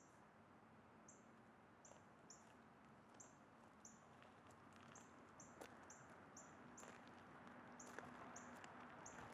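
Faint outdoor ambience: a soft hiss with a short, high chirp repeated about every half second, plus a few faint clicks.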